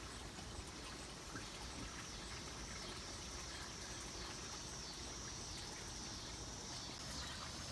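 Faint, steady outdoor background noise with an even high-pitched hiss running underneath.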